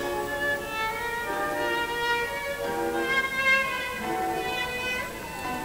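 Film score music: a violin plays a melody of held notes over other sustained notes.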